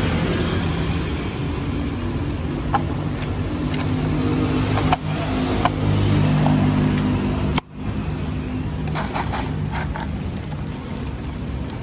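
Street traffic noise led by a vehicle engine running steadily, with a few sharp clicks. The sound briefly cuts out about two-thirds of the way through.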